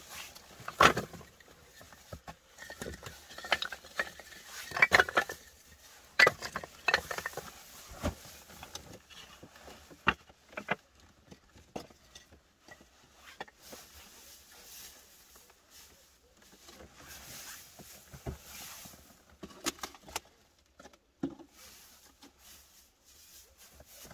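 Split wooden offcuts clacking against one another as they are picked up and set down, then a soft rustling of dry pine needles being spread and pressed down by hand, with an occasional click.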